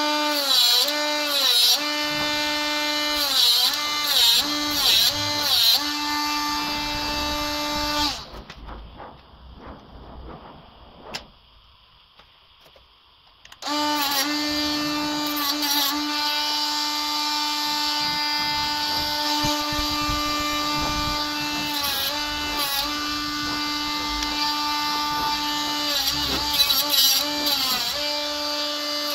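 Small cordless rotary tool running at a steady high pitch, its pitch sagging briefly each time it bites into the plastic radiator-grille frame. It stops about 8 seconds in, leaving a few faint clicks of handling. It starts again after about 14 seconds and runs on with occasional dips under load.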